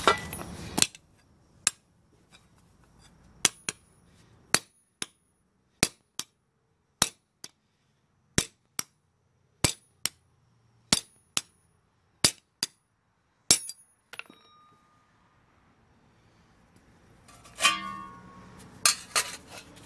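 Hammer blows on a round steel rod laid across a steel strap hinge on a leather sandbag, cold-bending the hinge to a radius. The strikes are sharp and metallic with a short ring, many in quick pairs, and stop about two-thirds of the way through. Near the end there is a brief clatter of metal being handled.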